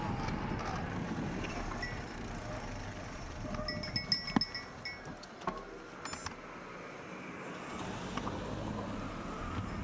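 Wind on the microphone while cycling, then a small metal bell rung with several quick strikes about four seconds in, ringing at the same pitch each time.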